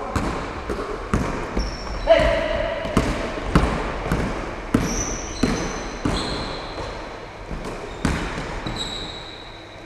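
Basketball dribbled and bouncing on a wooden gym floor, a knock roughly every half second to a second, with sneakers squeaking on the boards and a player's shout about two seconds in, echoing in the hall.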